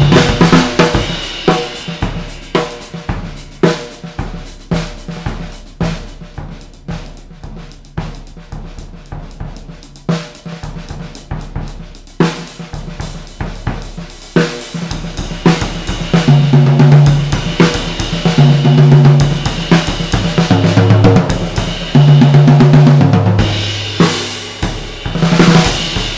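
Vintage Ludwig drum kit played in a groove: a 20x12 single-tension Hobby bass drum, snare, toms, ride cymbal and hi-hats. The playing drops to a softer passage a few seconds in, then grows louder again from about the middle.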